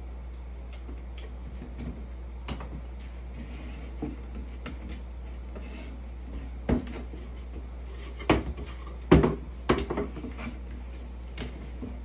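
Wooden knocks and clatter as a slatted wooden step box is handled and set down on a wooden floor during assembly: a few scattered knocks, then a cluster of sharp ones, the loudest about nine seconds in. A steady low hum runs underneath.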